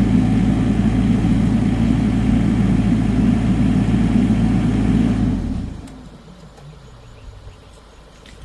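A large engine idling steadily, then the sound drops away sharply about five and a half seconds in, leaving only a faint low background.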